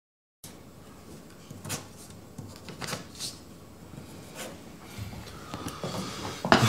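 Quiet pen scratching on paper and sheets of paper being handled, with scattered small scrapes and a louder paper rustle near the end.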